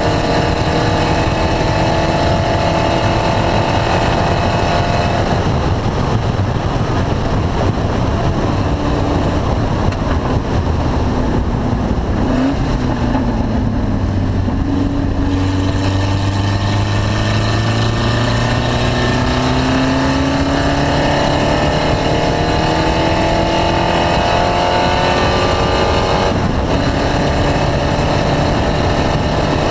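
Race car engine running on track, its pitch dropping early on, then climbing slowly and steadily for over ten seconds before a brief break near the end, over steady wind and road noise. The owner describes the engine as misfiring.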